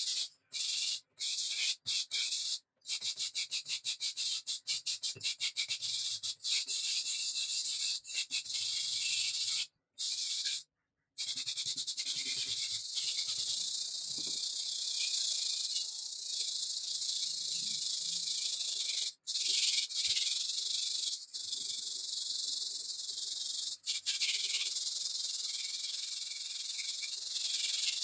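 Rust being scrubbed by hand off a steel saw blade: a scratchy hiss in quick back-and-forth strokes, about five a second for a stretch, broken by several brief gaps.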